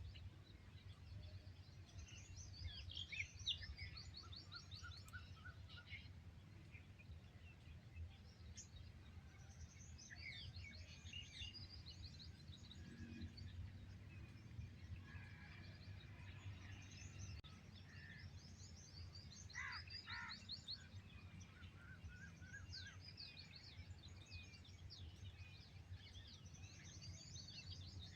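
Several small songbirds chirping and trilling, faint and overlapping, over a steady low background rumble.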